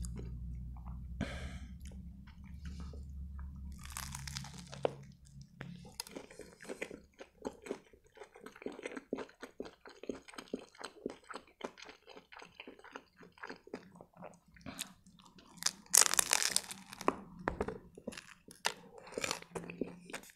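Close-miked chewing of a turkey shawarma: wet mouth sounds and crunching of the grilled lavash wrap, with a louder crunchy bite about three quarters of the way through.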